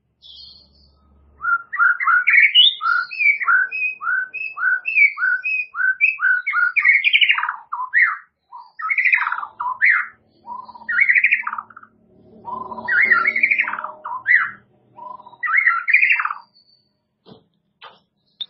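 White-rumped shama (murai batu) singing: a quick run of repeated whistled notes, then more varied phrases broken by short pauses, stopping a couple of seconds before the end. A few faint clicks near the end.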